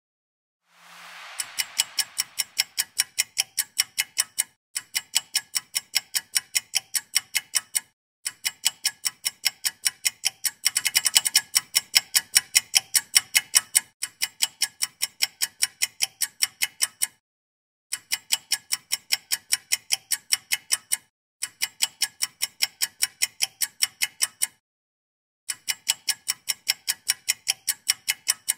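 Ticking-clock sound effect, very regular at about four ticks a second, in stretches broken by short abrupt silences. A soft hiss fades out just before the ticking starts.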